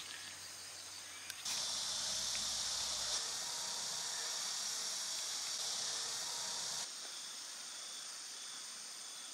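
Steady, high-pitched chorus of insects outside, louder for the middle few seconds and quieter again near the end.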